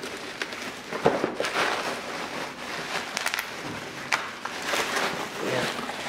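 Bubble wrap rustling and crackling as wrapped parts are lifted and shifted in a cardboard box, with a sharp knock about a second in.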